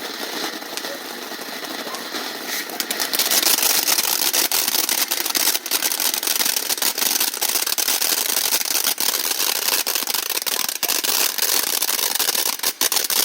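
A ground firework fountain burning, spraying with a dense hissing crackle of many rapid pops. It grows much louder and brighter about three seconds in and keeps crackling steadily.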